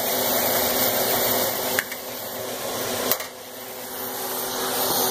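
Ground beef sizzling in a frying pan on the stovetop, a steady hiss with a faint hum under it. Two light knocks come about two and three seconds in; after the second the hiss drops, then builds back up.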